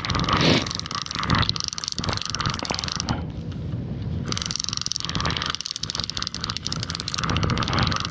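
Catfishing reel's line clicker ticking rapidly and continuously while a fish is fought and reeled in; the clicker will not switch off. The ticking pauses for about a second around three seconds in, then resumes.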